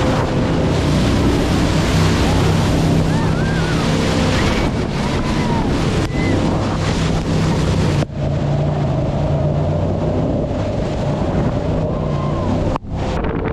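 Jet boat running at speed, its engine's steady drone under the rush of water and wind buffeting the microphone. The sound breaks off for an instant about eight seconds in and again near the end.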